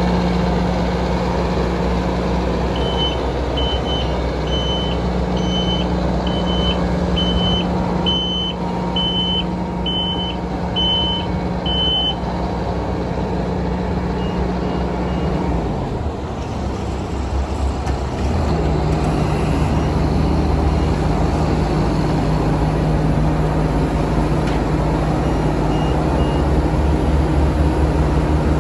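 BOMAG BP300P asphalt paver's diesel engine running steadily, with a reversing alarm beeping about one and a half times a second for roughly nine seconds. About halfway through, the engine note dips and then settles at a lower pitch.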